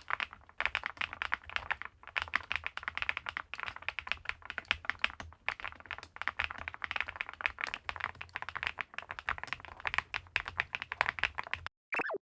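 Fast typing on a WEIKAV Record Alice V2 aluminium-cased, gasket-mounted mechanical keyboard: a dense run of key clicks with a few short pauses. The typing stops shortly before the end, followed by a brief falling swoosh.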